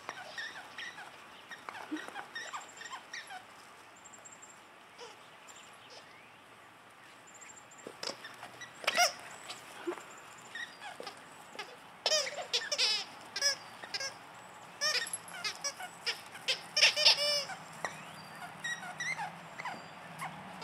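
Dog squeaker toys squeaking as dogs chew them: runs of short, high-pitched squeals, scattered at first, then coming thick and loud through the second half.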